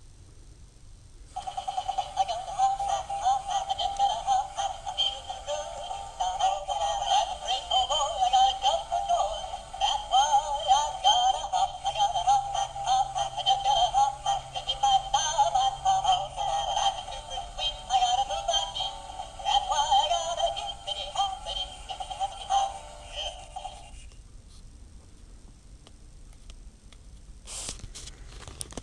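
Animated plush Easter bunny toy singing a song in a high-pitched electronic voice through its small built-in speaker, set off by a press on its foot. The song runs for about 22 seconds and then stops, and a few sharp clicks follow near the end.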